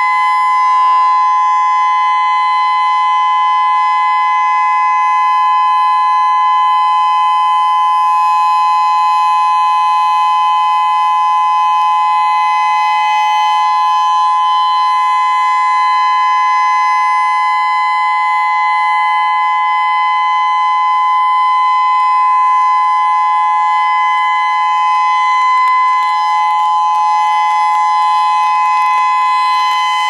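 Whelen WPS-3016 electronic outdoor warning siren sounding a steady dual-tone alert signal, two unbroken tones held at constant pitch, with the level swelling gently as its rotating speaker head turns. The unit has several bad-sounding, failing drivers.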